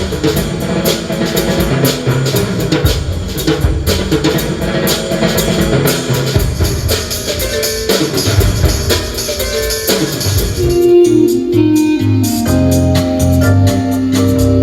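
Music with drums playing through a truck's car audio system driven by a Blaupunkt Bremen SQR46 DAB head unit. About ten seconds in the drums drop away and held organ-like keyboard chords carry on.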